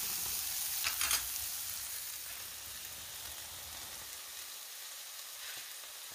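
Onions and flaked tilapia sizzling in oil in a frying pan, with a spatula scraping the pan a couple of times about a second in. The sizzle eases off a little after about two seconds.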